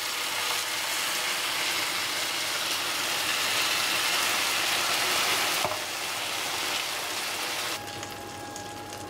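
Lukewarm sugar syrup poured from a glass jug onto hot kadayıf pastry fresh from the oven, sizzling steadily as the hot shredded pastry takes it up. The sizzle drops back a little before six seconds in and softens further near the end.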